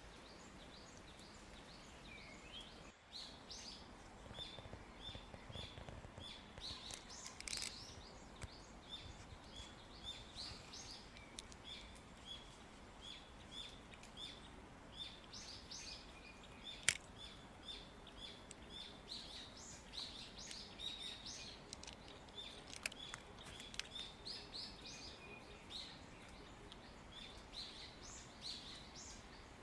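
Birds chirping: a quick, continuing run of short high calls from a few seconds in, with one sharp click about 17 seconds in.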